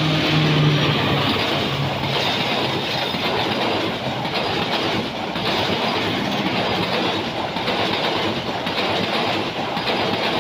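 Diesel-hauled passenger train passing close by: the locomotive goes past at the start, its pitched tone fading within the first second or two, then the coaches roll by with a loud, steady rumble and a rhythmic clickety-clack of wheels over the rail joints.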